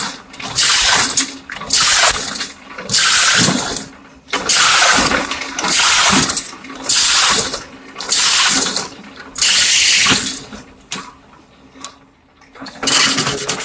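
PVC pipe drilling machine working in repeated cycles: a harsh hissing cut about once a second, each lasting under a second, with a short lull near the end.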